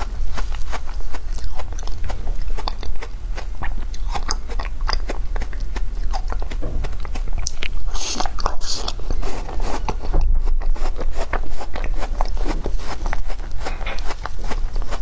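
Close-up biting and crunching of purple foam ice, a rapid crackle of small crunches as it is chewed, with a sharper bite about eight seconds in.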